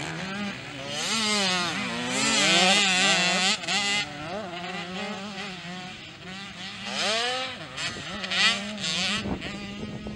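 Small youth motocross bike engines revving, their pitch rising and falling again and again with throttle and gear changes as several bikes ride the dirt track, over a steadier engine note.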